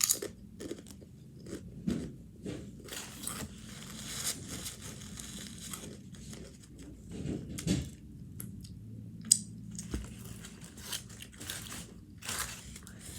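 A person chewing and biting crunchy food, with irregular crunches and mouth clicks.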